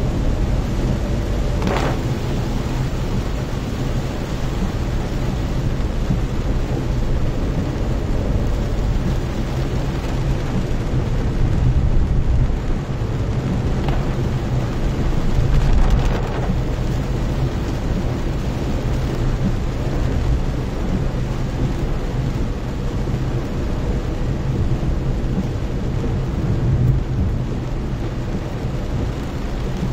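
Heavy rain drumming on a car's roof and windshield, heard from inside the cabin over the car's low engine and tyre rumble on the wet road. A few brief sharper sounds stand out, and the low rumble swells briefly about halfway through.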